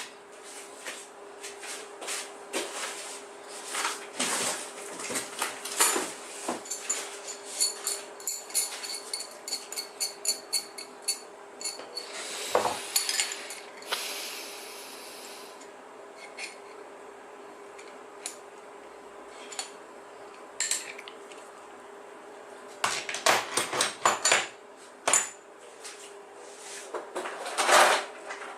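Metal tools and parts clinking and knocking during hands-on work on an electric skateboard hub motor, with a quick, regular run of clicks near the middle and a short rushing hiss just after it.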